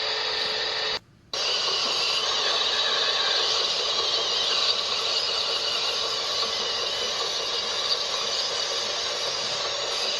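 Small electric motors and gearboxes of RC construction models running with a steady whir. The sound cuts out briefly about a second in, then resumes.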